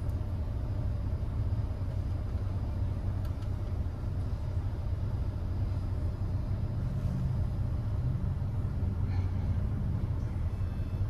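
Ford Edge idling while stopped, heard from inside the cabin as a steady low rumble that thickens slightly for a few seconds past the middle.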